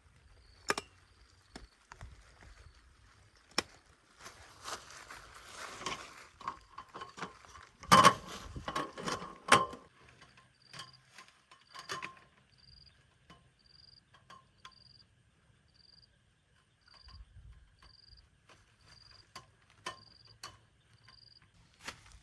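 Handling sounds: scattered sharp clicks and rustling, with a loud cluster of knocks and clatter about eight seconds in. After that a short high chirp repeats at an even pace, about one to two a second, with a few quiet clicks between.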